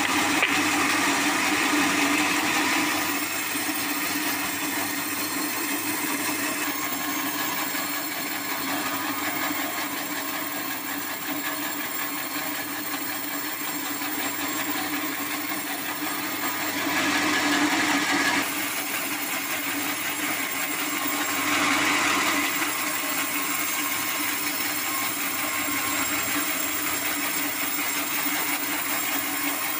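Band sawmill cutting lengthwise through a hardwood acacia beam: a steady motor hum under the hiss of the band blade in the wood. The cutting noise swells briefly near the start, at about 17 seconds and again at about 22 seconds.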